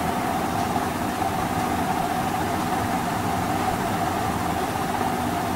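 Steady background machine hum with hiss and a constant mid-pitched tone, unchanging throughout.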